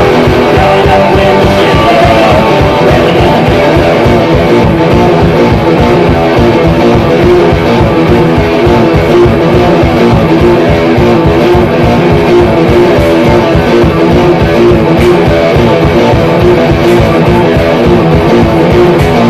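Amplified guitar strummed live in a fast, steady rhythm, loud.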